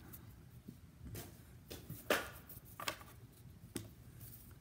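Soft handling noises of trading cards and a wrapped card pack on a tabletop: a few light taps and rustles, the loudest about two seconds in.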